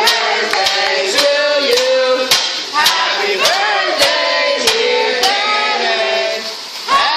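A group of voices singing together, with sharp claps keeping a steady beat a little under twice a second.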